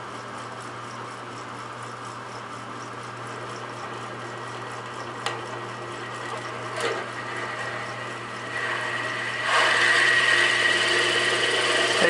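Drill press running with a 1¼-inch spade bit, the motor humming steadily. About nine and a half seconds in it turns louder and rougher as the bit starts cutting slowly into a plastic wall plate.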